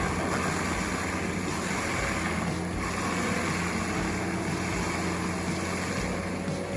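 Large forestry wood grinder running steadily: its engine and the grinding of wood merge into a constant rushing noise.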